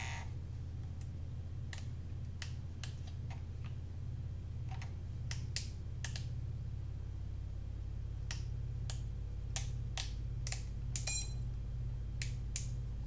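Sharp, irregular clicks of a FrSky X-Lite S radio transmitter's switches and buttons being flicked and pressed, over a steady low hum. There is a short buzzy beep near the end.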